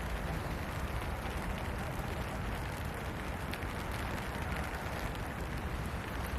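Steady rain falling, a dense even hiss that keeps a constant level.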